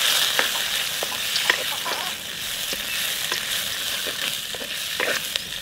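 Sliced carrots frying in hot oil with mustard seeds, cumin and chillies while being stirred: a steady sizzling hiss with scattered crackles and clicks.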